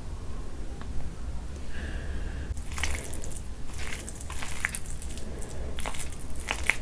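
A bare hand squeezing and mixing soft khichdi (rice and lentils) soaked in curry gravy: wet squelching with sticky crackles and clicks, starting about two and a half seconds in after a quieter opening.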